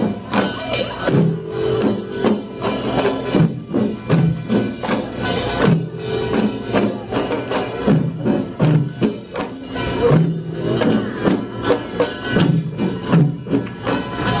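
Korean pungmul percussion band playing: a fast, driving rhythm of small hand gongs, drums and a ringing gong.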